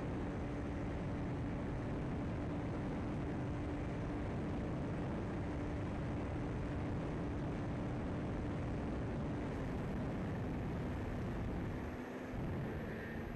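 Radio-controlled airplane's motor and propeller droning steadily, heard from on board with heavy wind rush over the camera's microphone. The tone drops slightly about ten seconds in.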